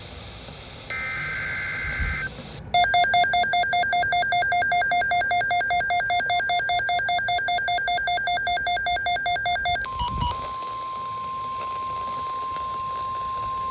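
Emergency Alert System broadcast tones. First comes the end of the harsh warbling digital SAME header, then a loud pulsing two-tone attention signal for about seven seconds. About ten seconds in it gives way to a steady single-pitch alert tone.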